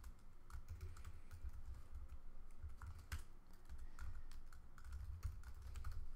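Typing on a computer keyboard: a run of irregular key clicks as code is entered.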